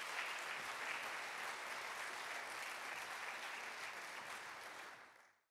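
Audience applauding steadily, a dense patter of many hands clapping, which fades out near the end.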